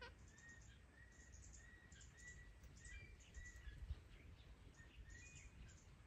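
Faint bird chirps: a short high note repeated about twice a second, with scattered fainter higher chirps, over a low rumble.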